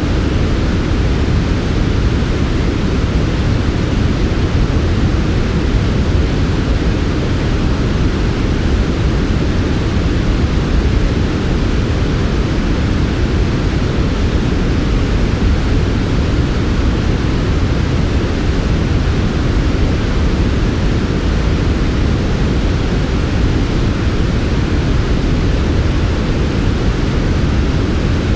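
Steady, unchanging synthetic noise smoothed for sleep: heaviest in the low end, with a softer hiss above, and no other sound.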